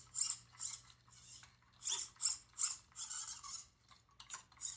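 Irregular plastic scraping and rubbing, about two or three short strokes a second, as the Reachy Mini's moving parts are worked through their range with the rerouted cables to check that nothing is obstructed.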